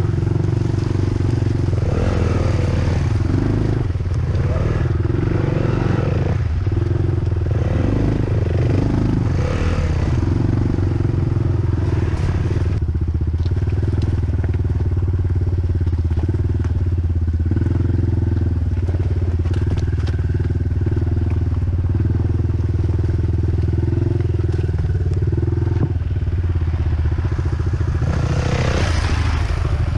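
Dirt bike engine running steadily at fairly constant, low revs, with scattered clicks and clatter over it and a brief louder rush of noise near the end.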